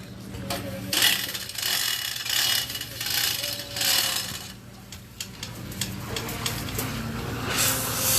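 Mechanical rattling and ratcheting in irregular surges over a steady low machine hum, typical of propeller-fitting work.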